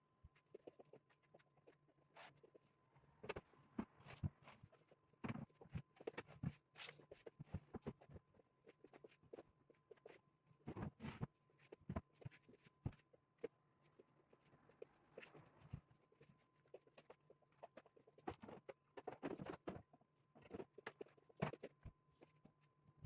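Faint, scattered light knocks, taps and handling noises of a melamine particleboard cabinet box and a wooden chair being shifted by hand into position, with a few footsteps.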